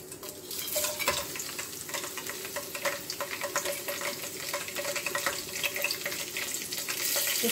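Whole spices (cumin seeds, bay leaves, cardamom, cloves, cinnamon, star anise, black pepper) sizzling and crackling in hot cooking oil in an aluminium pot, starting just after they are tipped in: the first stage of tempering a curry.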